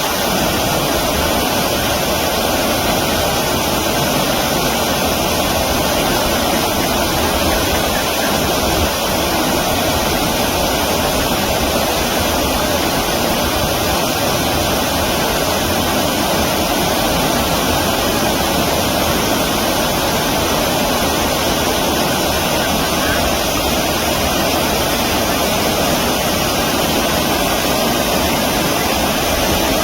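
Stream water rushing steadily, an even, unbroken rush of flowing water.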